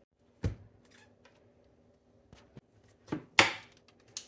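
A few short knocks and handling noises as an upturned cup packed with meat-and-potato filling is set down and pressed onto dough on a baking tray; the loudest knock comes about three and a half seconds in.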